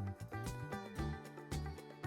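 Background music with a steady beat: drum hits about twice a second over bass notes and sustained pitched tones.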